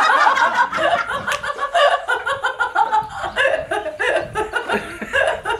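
Several people laughing together in a long run of quick, repeated bursts.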